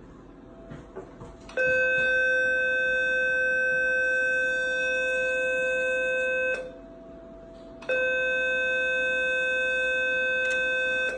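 Surgitron Dual 120 radiosurgical generator sounding its steady electronic activation tone twice, for about five seconds and then about three, the tone that signals radiofrequency output while the handpiece is keyed on tissue. A few faint clicks come before the first tone.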